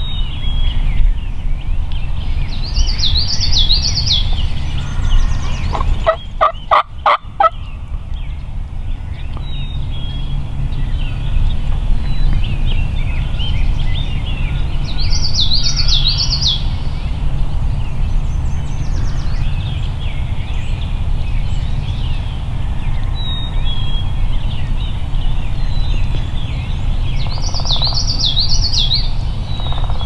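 Wild turkey gobbling three times, about twelve seconds apart, with a quick run of about six sharp yelp-like calls a little after six seconds in. A steady low rumble runs underneath.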